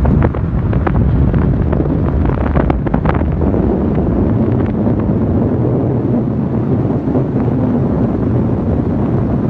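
Wind buffeting the microphone, a loud steady rumble, with a few faint sharp cracks in the first half.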